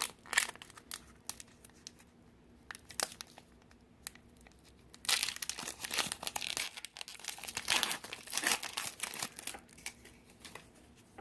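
Foil wrapper of a Pokémon trading-card booster pack being torn open and crinkled. There is a burst of crinkling at the start, a quieter stretch with a few small clicks, then a long spell of loud crinkling and tearing from about five seconds in until near the end.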